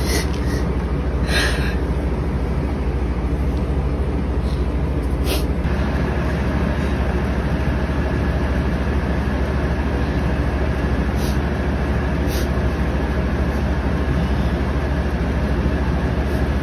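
Steady low rumbling drone, even throughout, with a few soft clicks scattered through it.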